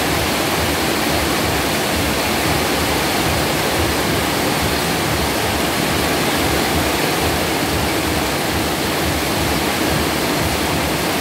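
Heavy rain pouring down in a loud, steady hiss that does not let up.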